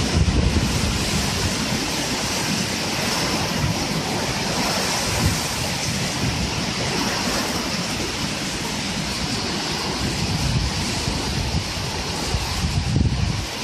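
Heavy downpour with gusting wind: a steady rushing hiss of rain, with wind buffeting the microphone in uneven low rumbles.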